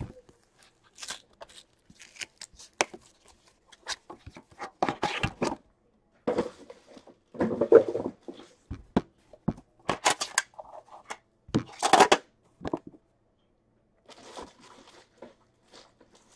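A sealed Upper Deck The Cup hockey card box being unwrapped by hand: the wrap tears and crinkles in irregular short bursts, with the packaging rustled and handled in between.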